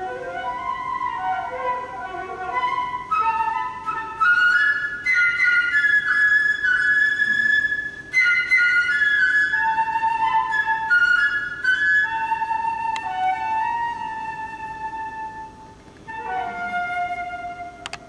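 Solo concert flute playing a single unaccompanied melodic line of held notes and short runs. It grows louder about four seconds in and softens near the end.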